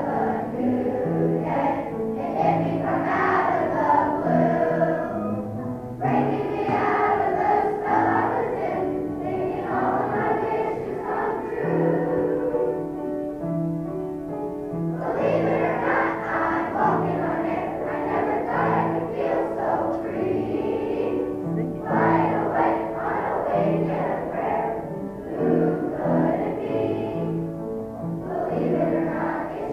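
A large children's choir singing a song with instrumental accompaniment.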